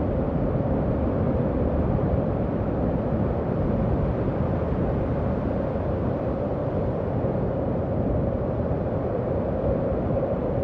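Howling wind sound effect: a steady rush of wind with one held, eerie howling tone running through it and no gusts or breaks.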